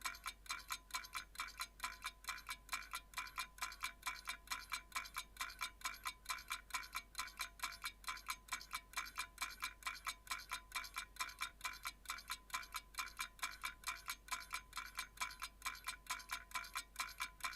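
Rapid, even ticking with a light chiming ring, about four to five strikes a second, held at a low level.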